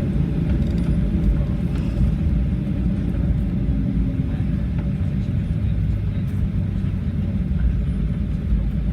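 Steady low rumble inside the cabin of a Boeing 737-800, from its engines and airframe.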